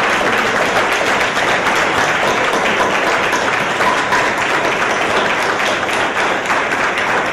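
Audience applause: a roomful of people clapping steadily, without a break.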